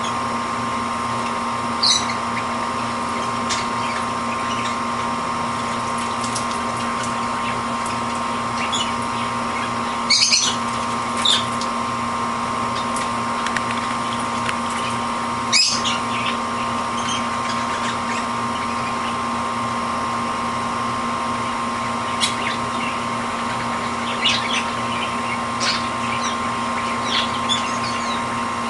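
Pet canary bathing in a steel water dish: a few short splashes and scattered brief high chirps, over a steady hum with a whine in it.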